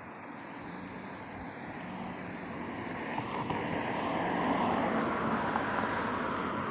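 A road vehicle approaching and passing: engine and tyre noise that swells steadily, loudest about four to five seconds in, then eases a little.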